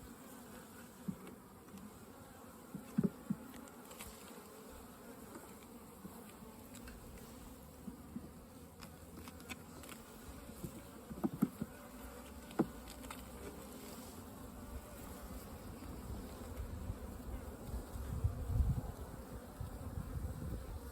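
Russian honey bees buzzing steadily around an open nucleus hive, with a few light clicks and knocks scattered through it.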